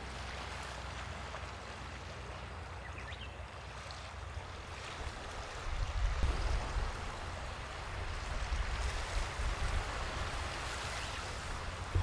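Sea waves washing onto the shore in a steady rush, with a low rumble of wind on the microphone that grows stronger about halfway through.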